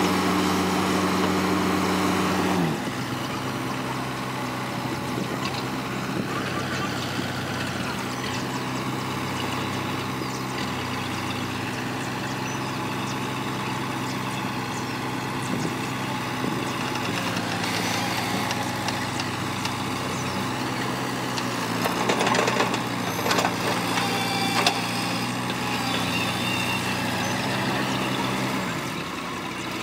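Diesel engine of a CAT 312 excavator running steadily, its revs dropping about three seconds in and easing down again near the end, with a few knocks in between.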